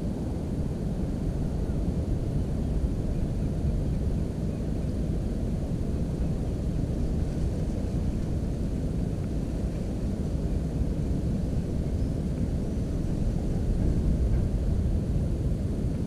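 Steady low rumble of wind on the camera's microphone, swelling slightly near the end.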